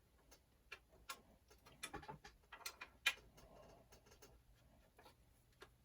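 Scattered small plastic clicks and scrapes, irregular and faint, with a few sharper clicks in the first three seconds, as a diagnostic cartridge is worked into a Commodore 64's cartridge port.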